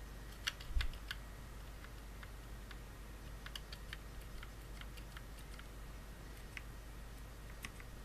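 Typing on a Fnatic Streak65 low-profile keyboard with Fnatic Speed switches (rebranded Kailh Choc V2 dampened linears): uneven, quick key clicks. About a second in comes a louder cluster of keystrokes with a low thump, then lighter clicks.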